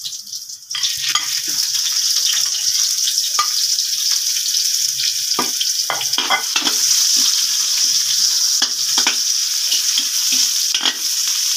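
Sliced onions and garlic sizzling in hot oil in an aluminium wok, starting about a second in as the onions go in, with a metal spatula scraping and clicking against the pan as they are stirred.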